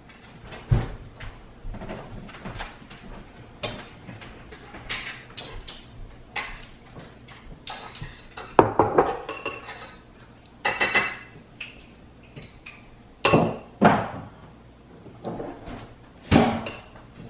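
Ceramic dishes and metal utensils clinking and knocking irregularly as a table is set and food is served with metal tongs. A few of the clinks ring briefly.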